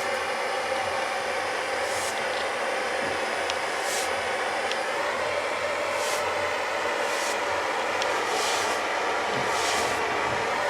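Plumber's gas torch flame burning with a steady hiss while a copper pipe joint is heated for soldering, with faint brief surges in the hiss about every two seconds.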